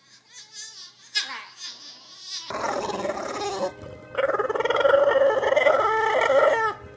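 Dog vocalising: a few short whines in the first couple of seconds, then a long wavering howl from about four seconds in.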